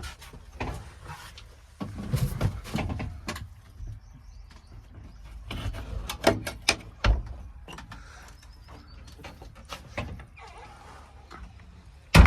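JCB 3DX backhoe loader at work: a low engine rumble with irregular knocks and scraping sounds over it.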